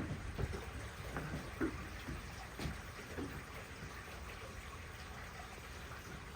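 Rain falling steadily, with scattered heavier drips and splashes, most of them in the first three seconds.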